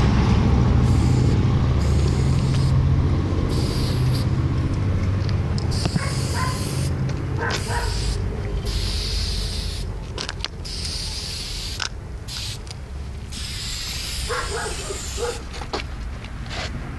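Aerosol spray can hissing in a series of short bursts, each a fraction of a second to about a second long, over a steady low rumble of traffic.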